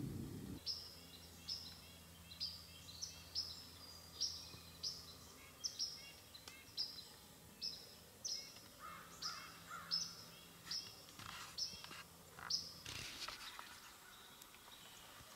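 A bird calling with a string of short, sharp, high chips, a little more than one a second, that stop a couple of seconds before the end, with a few lower notes and clicks among the last of them.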